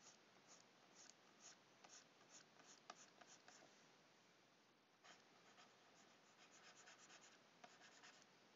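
Faint scratching of a pen stylus on a graphics tablet: short strokes two or three a second, a brief lull, then a denser run of scratching.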